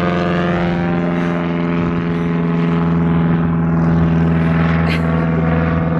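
Airplane flying over: a loud, steady engine drone with a strong hum, its pitch sinking slightly in the first second.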